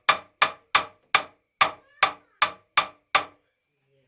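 Hammer blows striking at about three a second, nine in a row, stopping a little after three seconds in, as something is driven up through the ceiling.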